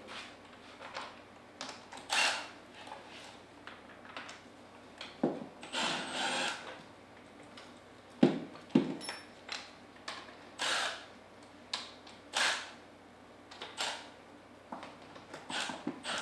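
Cordless impact driver run in several short bursts, backing out the front manifold bolts of a Comet P40 diaphragm pump, with two sharp clicks about eight seconds in.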